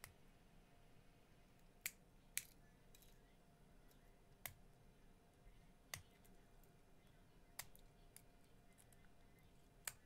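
3D-printed plastic support material snapping as it is peeled and broken off a print by hand: about six sharp snaps, a second or two apart.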